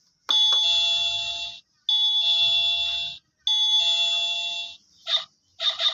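Electronic sound chip of a toy house playing through its small speaker: three long, shrill buzzing tones about a second and a half apart, then two short blips near the end, like a doorbell or alarm.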